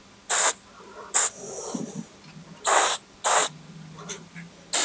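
Short hissing spritzes from a spray bottle of Starbond CA glue accelerator, about five in quick, irregular succession, misting freshly applied super glue to speed its cure.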